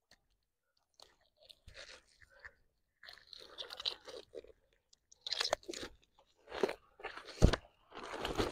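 Nylon gill net rustling and crackling in irregular bursts as a fish is worked out of the mesh by hand, with a dull thump about seven seconds in.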